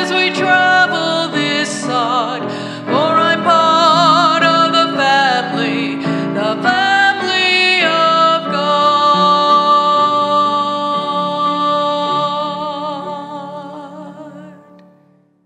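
A woman singing with vibrato while accompanying herself on a grand piano, ending on a long held note and chord that fade away near the end.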